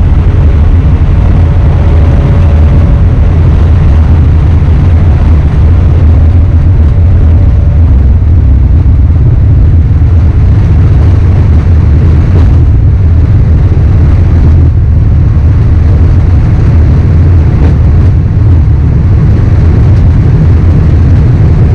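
Steady low rumble inside a Boeing 787 cockpit as the airliner rolls down the runway on its takeoff run: engine and runway noise heard from the flight deck.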